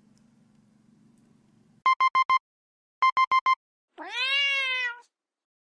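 Two quick runs of four short electronic beeps, like a digital alarm clock, followed by a single cat meow about a second long that rises and then falls in pitch.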